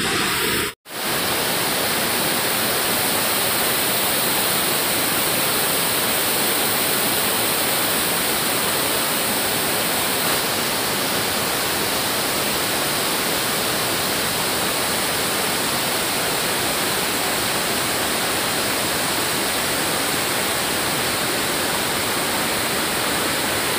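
Water pouring over a dam spillway into the river, a steady even rushing noise. A brief dropout to silence just under a second in.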